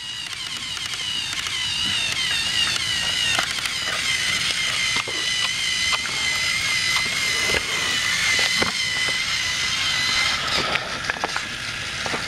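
Battery-powered TrackMaster toy train motors whining steadily, several at slightly different, wavering pitches, with scattered clicks of plastic wheels and track.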